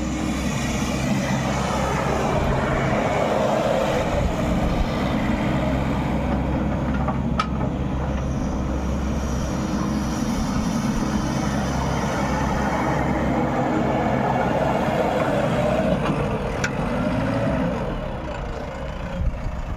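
Diesel engine of a JCB backhoe loader running steadily under working load. Its sound swells and eases a couple of times and drops a little near the end.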